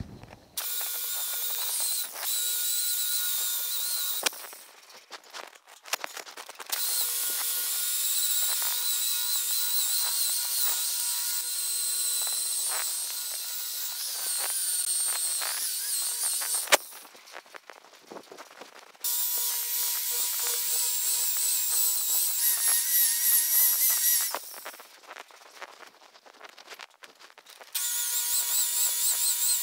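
Electric polisher with a foam pad running against the paint, cutting compound on a freshly color-sanded truck door. It makes a steady whine in several runs of a few seconds each, broken off abruptly by short quieter gaps.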